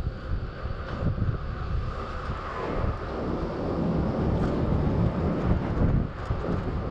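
Wind buffeting the microphone and a steady road rumble from an electric scooter rolling along a city street.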